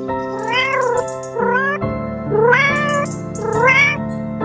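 Domestic cat meowing repeatedly, about five meows that each rise and then fall in pitch. Background music with held notes plays underneath.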